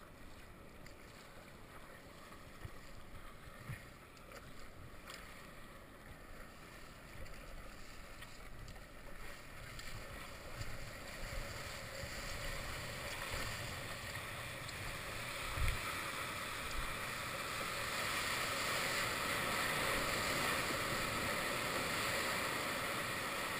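Water rushing and hissing past stand-up paddleboards as they catch and ride a breaking wave. The wash builds from about ten seconds in to a steady loud rush, with a few dull knocks along the way.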